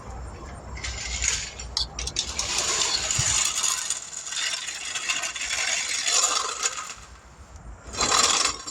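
Metal parts clinking and scraping, with a few sharp ratchet-like clicks, as hand-handled metal gear is worked.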